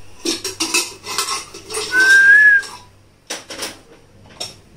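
Metal kitchen utensils clattering, then a short, slightly rising whistle over a rush of hiss, the loudest sound here, lasting under a second. A few more clacks follow.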